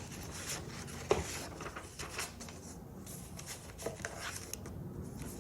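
Sheets of paper from a craft kit being handled: light rustling and small taps, with one sharper tap about a second in.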